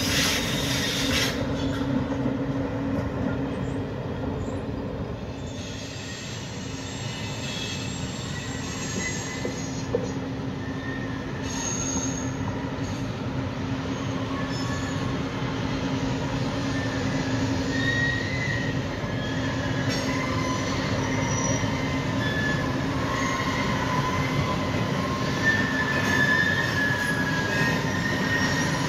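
A rolling-highway freight train carrying lorries on low-floor wagons rolls past with a steady rumble of wheels on rail, and thin wheel squeals come and go through the second half. In the first second or so the tail of a Railjet passenger train passes.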